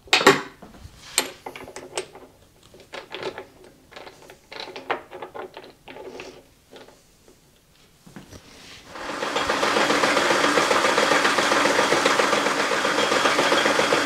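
Metal clicks and clunks of work being set in a lathe's three-jaw chuck and tightened with the chuck key, then about nine seconds in the belt-driven metal lathe starts and runs steadily, its tool at the end face of the spinning round stock.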